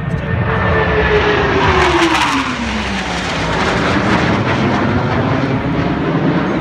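Blue Angels F/A-18 Hornet jets passing overhead: a loud jet roar with an engine whine that falls in pitch as they go by, about a second or two in.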